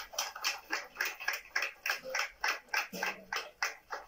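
Hand clapping: a steady run of sharp claps, about five a second.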